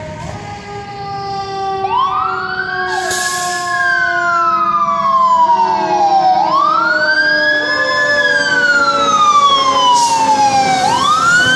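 Fire truck siren wailing, each cycle rising quickly and falling slowly, repeating about every four and a half seconds and growing louder. A lower steady tone sinks slowly in pitch beneath it, and there are two short bursts of hiss, about three and ten seconds in.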